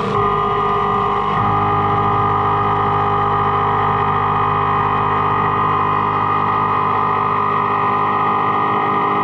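DN Solutions Mynx 7500 machining centre taking a finish pass in 316L stainless steel with a 3/4-inch Kennametal Harvi IV end mill at about 3,000 rpm, with flood coolant spraying. A steady cutting whine made of several pitches at once, over a hiss, filling out lower down about a second and a half in.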